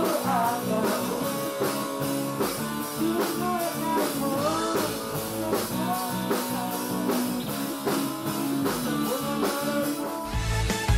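Young male voices singing a pop song together, with guitar accompaniment. A deep bass comes in near the end.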